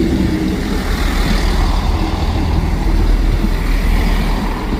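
Class 158 diesel multiple unit passing close by: low diesel engine note and a heavy rumble of the train on the rails, loudest about three seconds in.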